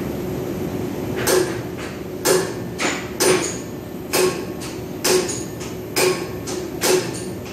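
Zanasi industrial printhead solenoid valves clicking sharply about once a second over a steady machine hum, as a valve is set while it cycles.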